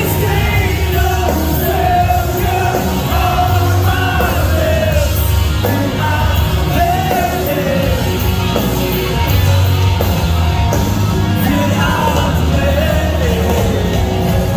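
Metalcore band playing live at high volume, with a heavy low end from bass, guitars and drums under a vocal line that rises and falls throughout.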